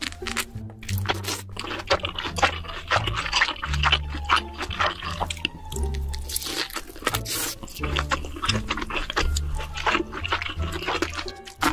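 Close-miked chewing of big bites of sauce-glazed pork belly: a dense run of short wet clicks and smacks, over background music with a repeating bass line.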